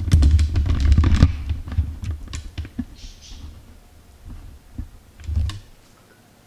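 Hands handling a laptop and its small parts: a cluster of dull thumps and clicks in the first second and a half, then scattered lighter clicks and taps, with another thump about five seconds in.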